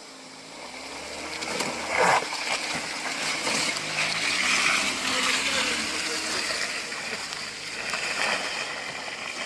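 A car engine revving with a wavering pitch as the car drives through water, which splashes and rushes around it. There is a sharp loud splash about two seconds in.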